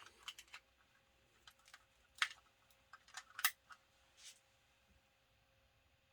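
Scattered sharp clicks and light knocks of small plastic tools and cable connectors being handled, the loudest two about two and three and a half seconds in, over a faint steady hum.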